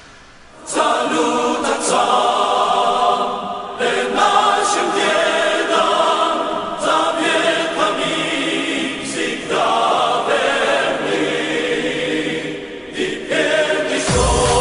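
Choral singing, several voices in chant-like song. A sudden deep low rumble comes in near the end.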